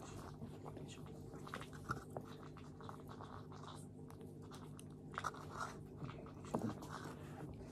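A cat eating from a plastic bowl: irregular small clicky chewing and crunching sounds, a few louder ones between about five and seven seconds in.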